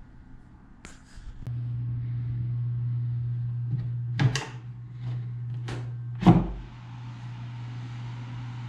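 Clicks of a metal latch and knocks of wood as the hinged plywood panel of a keezer's coffin top is unlatched and swung open, ending in a heavier thud. Under them, a steady low electrical hum starts about a second and a half in and keeps going, with a soft hiss after the panel opens.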